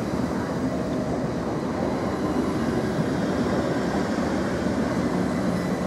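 Great Northern Class 387 electric multiple unit pulling slowly into the platform, its wheels and running gear passing in a steady rumble with a faint steady high whine.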